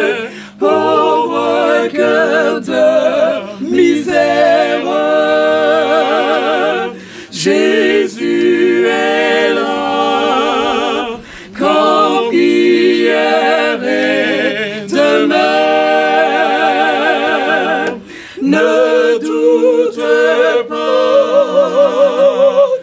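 A small mixed group of men and women singing a French hymn a cappella, with heavy vibrato and short breaths between phrases.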